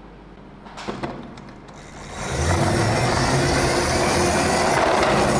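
A motor or vehicle running: a few clicks about a second in, then from about two seconds a loud, steady noise with a low hum that carries on.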